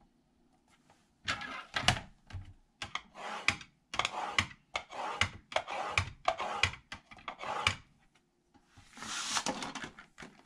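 Sliding blade head of a Cricut paper trimmer run back and forth along its rail about a dozen times in quick strokes, scoring a fold line into cardstock. Near the end comes a longer rustle of card stock being handled.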